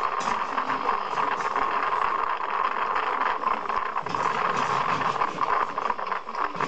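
Vehicle engine running, mixed with a horse's hoofbeats on asphalt, played back tinny through a computer speaker.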